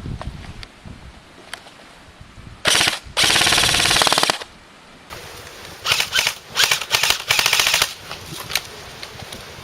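Airsoft guns firing full-auto bursts. A short burst comes about three seconds in, followed straight away by a longer burst of about a second. Several more short bursts follow a couple of seconds later.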